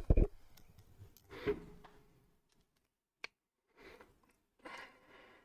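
Handling noises from a soldering iron's tip being changed: a few sharp knocks and clicks, loudest at the start, one knock with a brief ringing tone about a second and a half in, a single click past the middle, and light rustling near the end.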